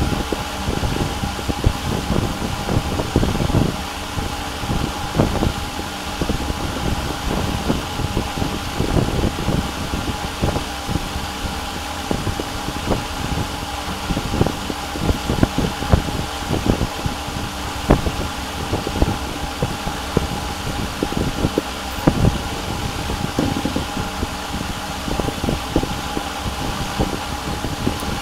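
Steady fan-like mechanical whir with a constant high hum, broken by frequent irregular soft low knocks.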